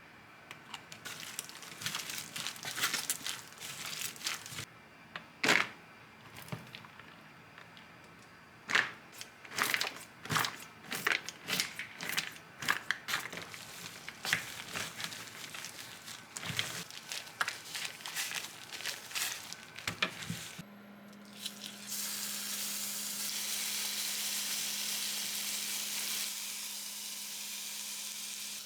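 Kitchen handling noises, a run of clicks, knocks and crinkling, then about twenty seconds in food starts sizzling in a frying pan, a steady hiss over a low hum.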